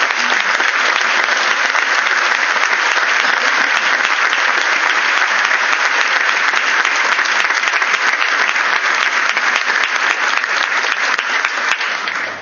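Audience applauding steadily, then dying away just before the end.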